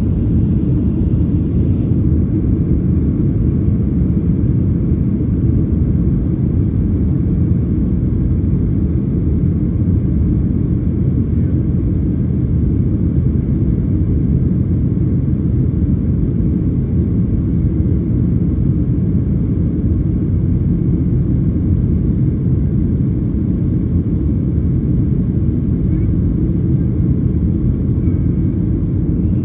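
Steady low roar of jet airliner cabin noise in flight, the engines and rushing air heard from a window seat.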